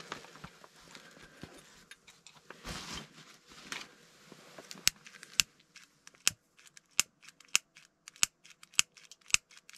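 A lighter clicked over and over without catching, sharp clicks coming about two a second in the second half.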